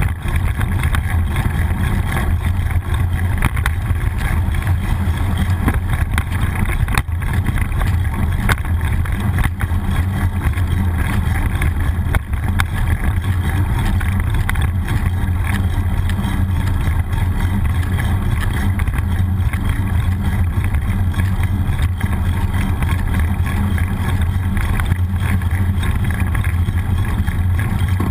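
Steady low rumble of wind and road noise at a bicycle-mounted GoPro while riding, with the odd faint knock.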